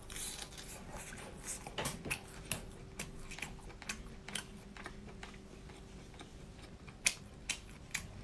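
A person chewing lobster meat close to the microphone: irregular soft, wet mouth clicks and smacks, with a faint steady hum underneath.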